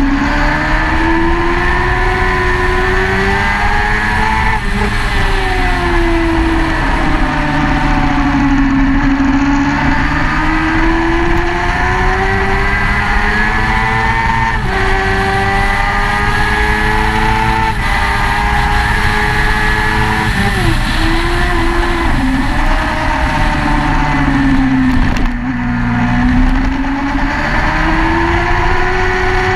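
Sportbike engine at high revs, heard from a camera mounted on the bike. Its pitch climbs under acceleration and drops abruptly at several gear changes, and it falls and rises again through the corners.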